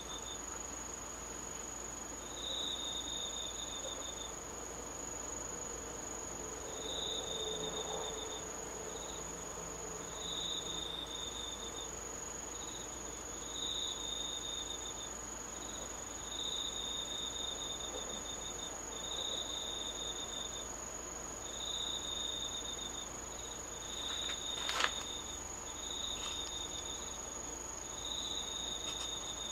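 Autumn insects singing at night: one holds an unbroken high-pitched trill, while another sings lower trills about a second long, repeated every second or two. A single sharp click comes about 25 seconds in.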